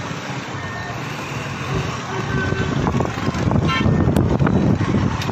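Hubbub of a large outdoor crowd, many voices talking at once, growing louder about halfway through, with a brief call rising above it a little past the middle.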